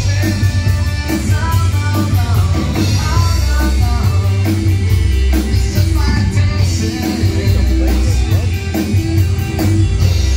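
Live country-rock band playing: drum kit, bass, electric guitar and a singing voice, loud and with a heavy bass beat.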